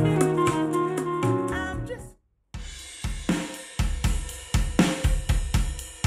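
Recorded music played through Qualio IQ hi-fi loudspeakers: a jazz track's held notes fade out, there is a brief silent break about two seconds in, and then a rock track starts with drum kit hits building into a steady beat.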